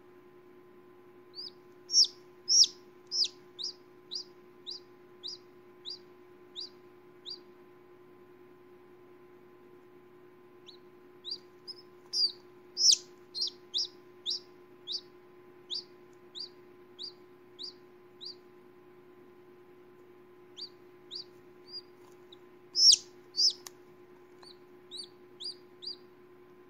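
Chicken chick peeping while hatching from its egg: short, high chirps in three bouts, about one to two a second, with pauses of a few seconds between the bouts.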